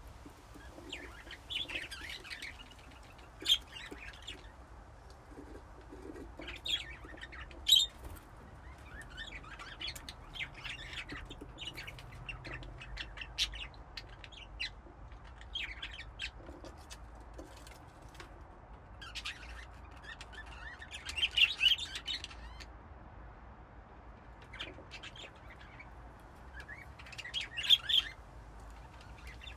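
A group of budgerigars chirping and chattering in bursts, with the louder flurries coming around 2, 8, 21 and 28 seconds, over a low steady hum.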